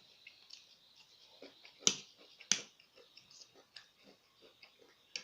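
Close-miked eating: chewing with many small wet mouth clicks, and two sharp, louder clicks about two and two and a half seconds in.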